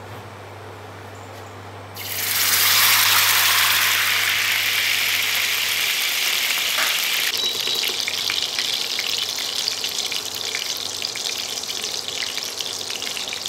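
Desi ghee poured into a hot stainless steel kadai on an induction cooktop, setting off a sudden loud sizzle about two seconds in that eases into steady crackling and spitting. The cook puts the crackle down to grains of buttermilk left in the reheated ghee.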